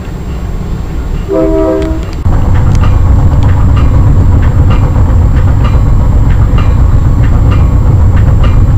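Passenger train sound effect: a short horn blast about a second in, then a louder, steady low rumble of the moving train with wheels clicking over rail joints about two or three times a second.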